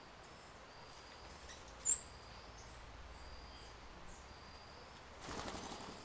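Red-breasted toucan taking off from a feeder, with a short burst of wingbeats near the end. About two seconds in comes a single short, sharp, high chirp, the loudest sound, over faint repeated high-pitched calls in the background.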